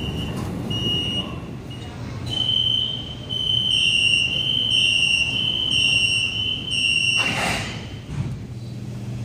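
Metro door-closing warning: a high electronic beep repeating about once a second for several seconds as the train doors and platform screen doors prepare to shut, then a short whoosh as they slide closed about seven seconds in. A low steady hum follows near the end.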